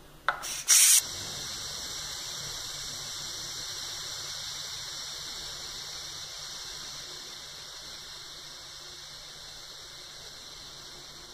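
Steam hissing out of the pressure-release valve of a Mondial Pratic Cook 4L electric pressure cooker, held open by hand to vent the pressure quickly. It starts with two short loud spurts, then settles into a steady high hiss that slowly fades as the pressure drops.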